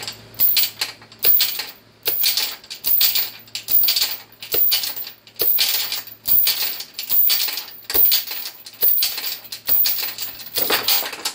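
Homemade chain slide hammer jerked again and again to pull a pressed-in fuel injector: steel chain and sliding weight clanking and rattling in sharp metallic jolts, about two a second.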